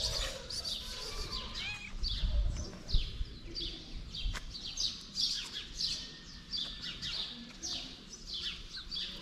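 Small birds chirping busily, short high descending chirps several times a second, with a sharp click about three seconds in.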